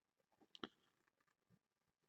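Near silence: room tone, with two faint short clicks just over half a second in.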